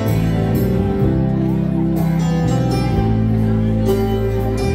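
Dance band playing a slow ballad live, an instrumental stretch with steady held chords, heard through the hall's PA.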